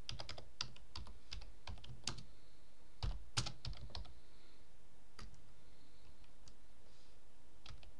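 Typing on a computer keyboard: quick runs of keystrokes for the first few seconds, then a few scattered taps.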